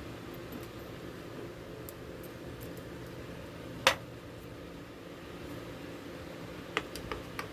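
A single sharp knock about four seconds in, then a few lighter clicks near the end, over a steady low hum: hard parts being handled and set down while an old radio cabinet is taken apart.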